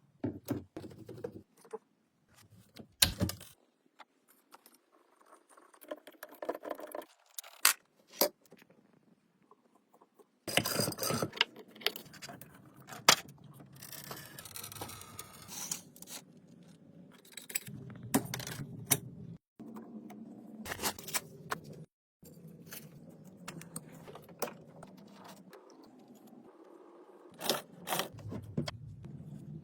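Workshop handling noise: small metal parts and tools clinking, knocking and scraping in irregular bursts, with a few sharp knocks.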